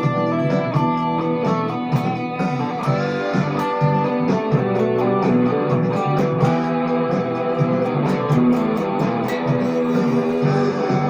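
Ibanez RG350EX electric guitar played without pause, a continuous run of picked notes and chords.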